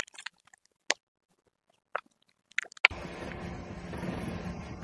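A few sharp, scattered crackles of a plastic snack packet pressed under a car tyre. About three seconds in, a steady car engine idle with outdoor background noise sets in.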